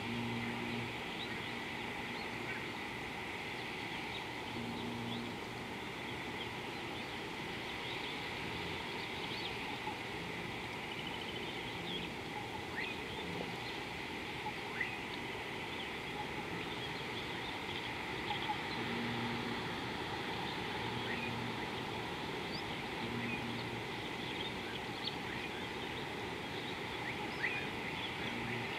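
Steady outdoor background hiss with many brief, high chirps of birds scattered across it, and a low hum that fades in and out several times.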